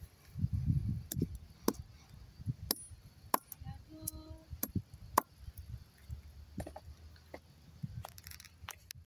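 Steel hammer head striking a small green fruit on concrete: about ten sharp knocks at irregular intervals as the fruit is crushed. A low rumble in the first second or so.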